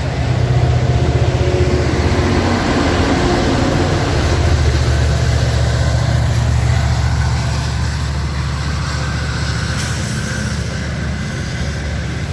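Metra F59PHI diesel locomotive's EMD 12-710 engine running with a low, steady drone; the deep rumble grows stronger about four seconds in.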